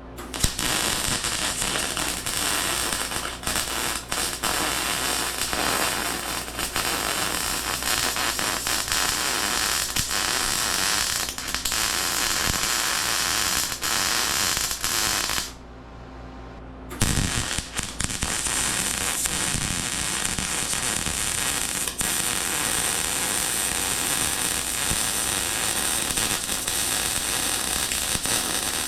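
Welding arc crackling and spitting in a long steady run, stopping for about a second and a half near the middle and then striking up again.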